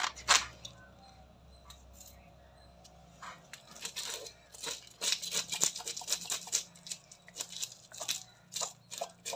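A knife blade scraping the scales off a murrel (snakehead) fish on a wooden board. A couple of strokes right at the start, a pause, then quick repeated scraping strokes from about three seconds in.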